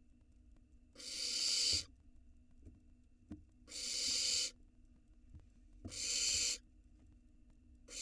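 Barn owl nestlings giving harsh, hissing calls, each under a second long, about every two seconds; a fourth begins near the end. This is the food-begging hiss typical of barn owl chicks.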